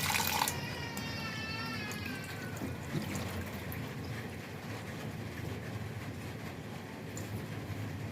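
Kitchen tap running, shut off about half a second in, followed by a high whine that fades out over the next two seconds. After that only a low, steady hum.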